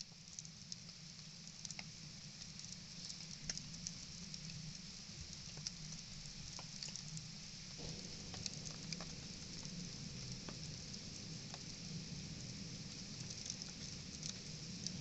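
Campfire crackling: scattered sharp pops and snaps over a steady hiss and low rumble.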